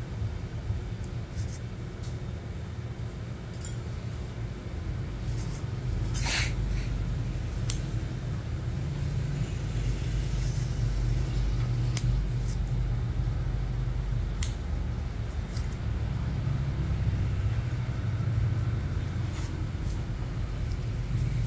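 Toenails being trimmed with a nail nipper: scattered sharp snips, one every second or few seconds, over a steady low rumble.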